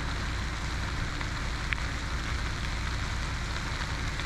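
Semi truck's engine drone and road noise heard inside the cab while driving, steady throughout.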